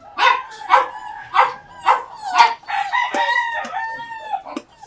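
Puppies yipping and whining, excited for their food, in a string of short sharp calls about twice a second. About three seconds in, a long drawn-out call is held for over a second.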